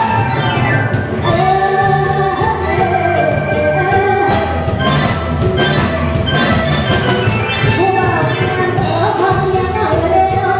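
Live band playing upbeat Isan luk thung music with a steady drum beat and a singer's voice over it.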